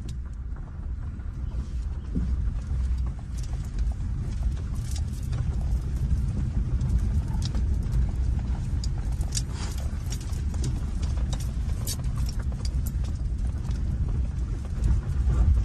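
Inside the cabin of a Honda CR-V driving over a rough dirt track: a steady low rumble of engine and tyres, with irregular clicks and knocks from stones and gravel under the tyres and the car jolting over the ruts.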